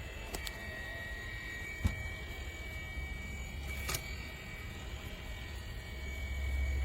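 Steady hum of a small electric motor with a faint high whine over a low rumble, broken by a few light clicks.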